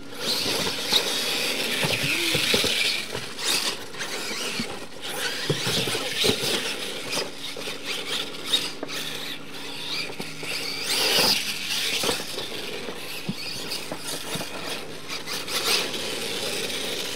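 R/C monster truck driving hard over a dirt track: a high-pitched whine from its motor and drivetrain surging and easing with the throttle. Tyres scrabble on the dirt, with occasional knocks as it bounces.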